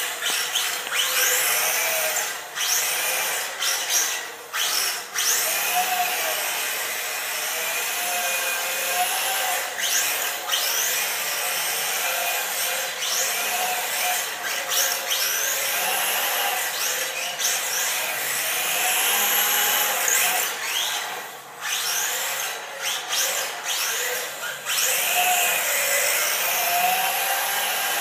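Electric motor of a 1/18-scale Team Associated RC18R RC car whining as it drifts, its pitch rising and falling over and over as the throttle is blipped, with short gaps when it is let off. Its tyres slide on the concrete floor.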